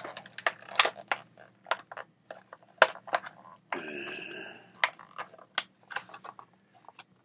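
Packaging being handled as a part is worked loose from a tight holder: many irregular sharp clicks and taps, with one brief drawn-out sound about four seconds in.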